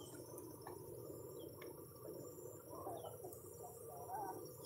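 Faint steady insect chorus, with a couple of faint short bird chirps.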